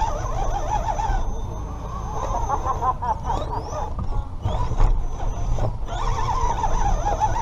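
Redcat Gen7 Pro RC rock crawler's electric motor and drivetrain whining, the pitch wavering and rising as the throttle changes, over a low rumble from the chassis, with a few sharp knocks near the middle as it climbs over the course.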